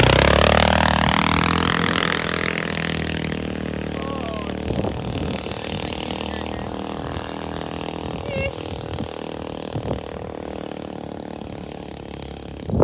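Engine of a small 250 side-by-side utility vehicle running. Its pitch drops from high revs over the first couple of seconds, then it runs steadily and slowly grows fainter. A few short bird chirps come through faintly.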